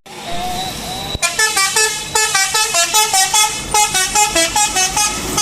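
Bus 'telolet basuri' multi-trumpet air horn playing a quick tune of short notes that step up and down, about four a second, starting after a click about a second in.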